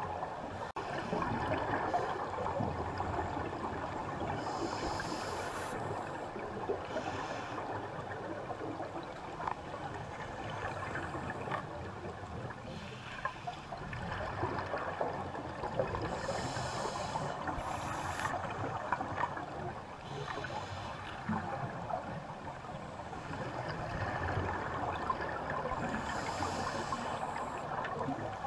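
Underwater ambience heard through a GoPro housing resting on the seabed: a steady muffled hiss, with scuba divers' exhaled regulator bubbles burbling up in short bursts several times.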